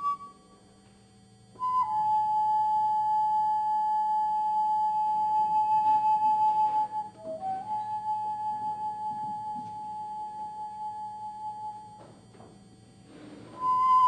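Slow solo flute music: long held notes with a few quick steps between them, and brief pauses between phrases.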